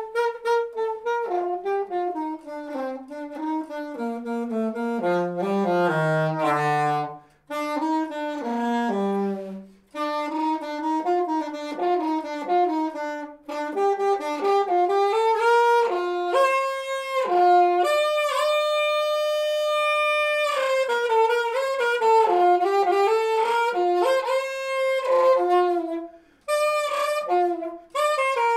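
Unaccompanied saxophone playing a slow melody in phrases with short pauses between them. One line sinks to its lowest, deepest notes about six seconds in, and a long note is held about two-thirds of the way through.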